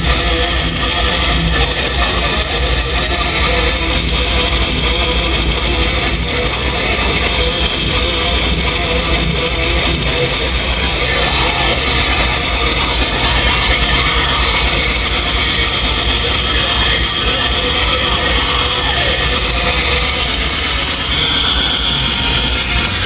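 Rock music led by guitar, playing steadily and loudly.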